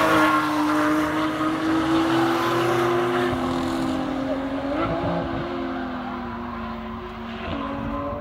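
Track cars' engines running at high revs on the circuit. A close pass-by fades at the start, then more distant cars' steady engine notes step up and down in pitch a few times.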